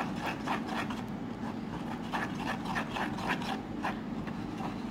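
Spoon stirring and scraping a thick glue-and-paint slime mixture around a plastic bowl, in quick repeated strokes, a few a second.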